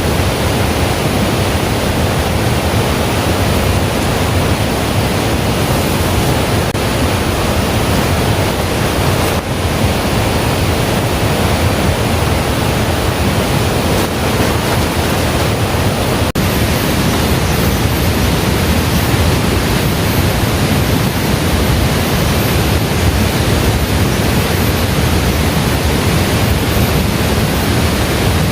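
Steady, dense rush of falling water: heavy rain and streaming water with no breaks or single drops standing out. A faint, thin high-pitched whine joins about halfway through.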